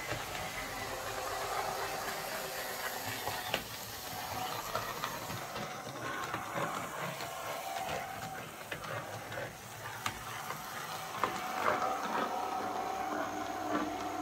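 Airfix Class 14xx OO gauge model locomotive chassis running along the track under power: a steady whirring motor whine over busy gear and drive noise, with small clicks. It is a wee bit noisy, a bit of a racket from its many moving parts, but running okay after repair.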